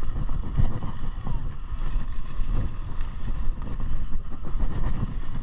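Wind rumbling on a body-worn camera's microphone over the scrape of short snowblades sliding on groomed snow.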